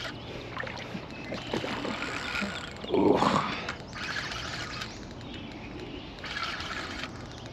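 Short bursts of water splashing as a hooked carp swirls at the surface while being played on the rod. A man's short "ooh" about three seconds in is the loudest sound.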